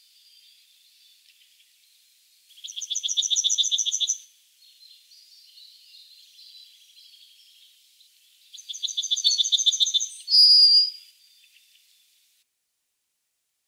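Pine bunting singing two songs, each a fast trill of rapidly repeated notes. The second song ends on a higher note. Fainter bird chirping is heard between the songs.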